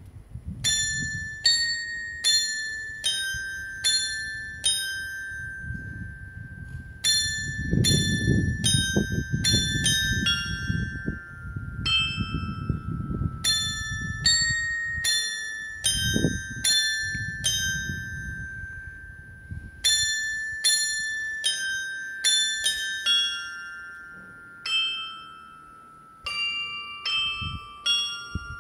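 Small bells of a clock-tower carillon, hung in rows on the tower's walls, struck one after another to play a melody in phrases with short pauses; each note rings on and fades.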